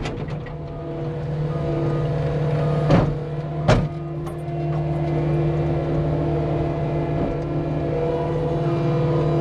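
Cat 259D compact track loader's diesel engine running steadily at working revs, with two sharp clanks about three seconds in, less than a second apart.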